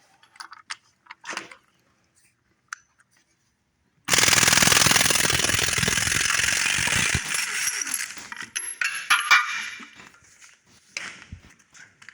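Impact wrench hammering in one loud burst of about three seconds, starting suddenly about four seconds in, on a bolt of a diesel engine's cylinder head. It trails off into a few metal clicks and clanks.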